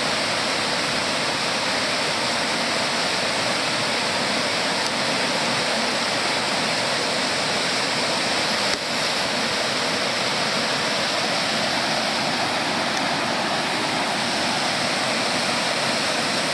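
Waterfall pouring onto rocks close by: a steady rush of falling white water.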